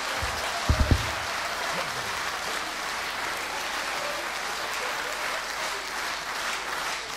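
Audience applauding steadily, with a few short low thumps in the first second.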